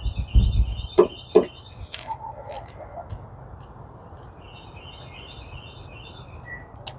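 A songbird chirping in quick repeated high notes, in two runs, one at the start and one in the second half. Near the start there is also a short low rumble and two sharp clicks about half a second apart, with a few fainter ticks later.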